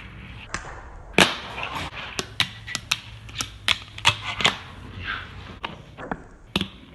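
Fingerboard clacking on concrete: a quick, irregular string of sharp clicks and knocks as the board pops, flips and lands, with urethane wheels rolling faintly between strikes. The loudest knock comes about a second in.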